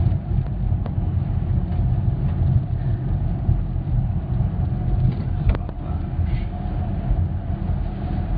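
Steady low rumble of a car driving, engine and tyre noise heard inside the cabin, with a couple of faint ticks.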